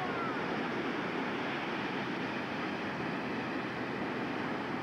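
Steady wash of ocean surf on a beach, an even noise without distinct waves breaking.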